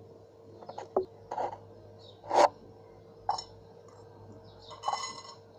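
A metal fork and spoon knocking and scraping against a cut-glass bowl while chopped raw mango is stirred with spices. A few scattered clinks, the loudest about two and a half seconds in, and a ringing clink near the end.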